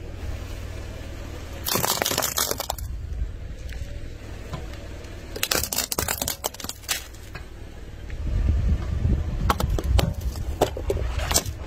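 A car tyre rolling slowly over small plastic and candy objects on asphalt, crushing them. Three spells of crunching and crackling come about 2 s in, about 6 s in and again near the end, over a low rumble of the tyre on the road that grows louder in the last few seconds.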